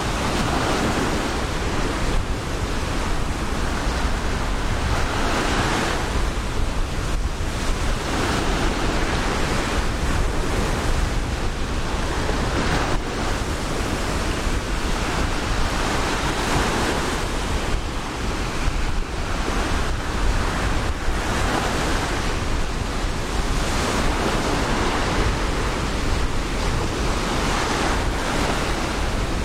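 Ocean surf breaking and washing up the beach, swelling and fading every few seconds. A steady low rumble of wind buffets the microphone underneath.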